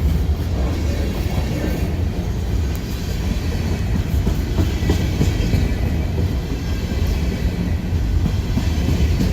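Empty freight cars of a BNSF train rolling past: steady noise of steel wheels on rail with light clicking over the joints.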